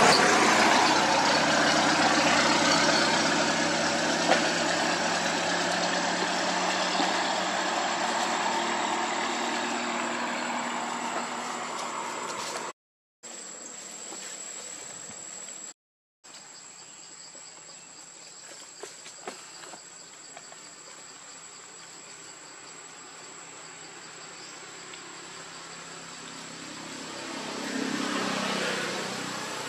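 A motor vehicle's engine, loud at first, fades away over about twelve seconds. After two brief dropouts a steady insect chorus with a thin high whine remains, and another engine grows louder near the end.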